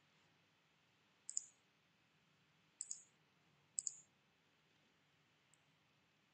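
Computer mouse clicking: three quick double clicks spread over a few seconds, over faint room hiss.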